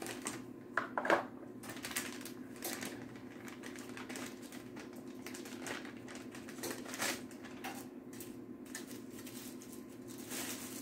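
Tissue and wrapping paper rustling and crinkling in short, scattered crackles as a small gift is unwrapped by hand, over a steady low hum.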